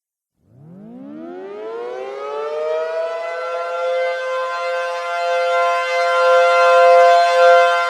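Civil defense warning siren winding up from silence about half a second in, its pitch rising over a few seconds and then holding steady as a two-note chord, growing louder throughout.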